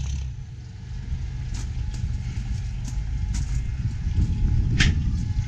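Low, uneven outdoor rumble with a few light clicks and knocks from the hand-held camera, one sharper click about five seconds in; the rumble grows a little louder toward the end.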